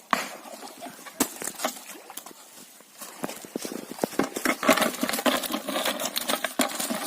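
Cast net with its catch being handled out of the fishery pond: irregular wet slaps and patters from fish flapping in the net and water dripping off it, sparse at first and then thick and busy about three seconds in.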